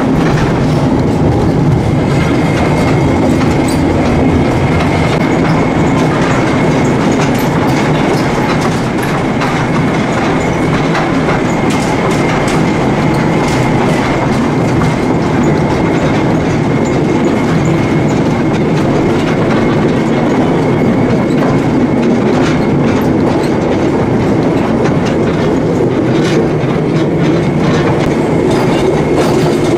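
Erzberg iron mine's tour train running through a rock tunnel, heard from aboard: a steady rumble of wheels on the rails with clicks from the rail joints. A thin high whine comes in about two seconds in and holds for most of the ride.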